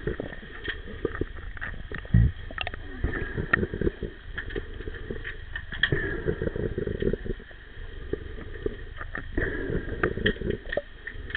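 Underwater sound of an underwater hockey game, picked up by a camera submerged in the pool: a muffled, constant rush of water with many quick clicks and knocks from sticks and the puck on the tiled pool floor. A heavy low thump comes about two seconds in.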